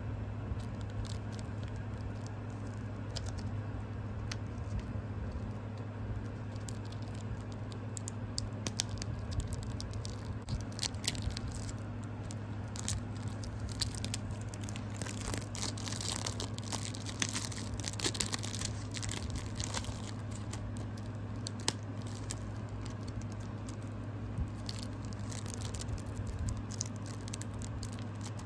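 Plastic wrapping on a DVD case crinkling and tearing as it is unwrapped, with scattered clicks and scrapes from handling, busiest through the middle. A steady low hum runs underneath.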